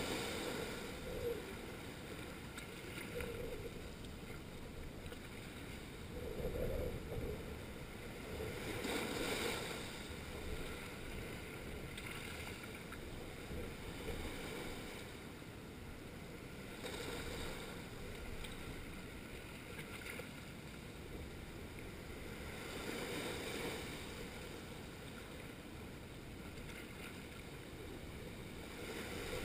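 Small waves breaking and washing over a rocky shoreline shelf, the surf swelling and ebbing every few seconds, with the biggest surges about a third of the way through.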